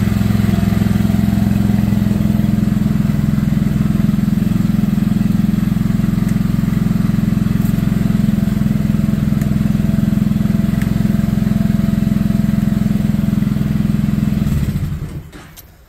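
Small petrol engine of a home-fixed off-road buggy idling steadily, then switched off about fifteen seconds in and running down to a stop.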